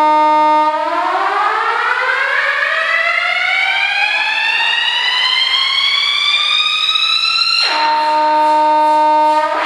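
Synthesized electronic tone rich in overtones from a sound installation: it holds a steady pitch, then glides slowly upward for about seven seconds and suddenly drops back to the starting pitch, which it holds again near the end.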